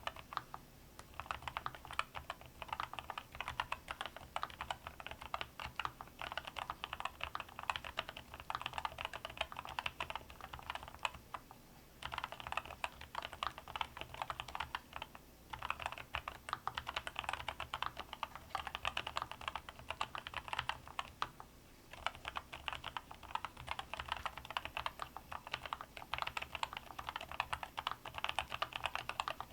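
Continuous typing on a NuPhy Air96 V2 mechanical keyboard with low-profile Wisteria switches: rapid key clicks in runs, broken by a few short pauses.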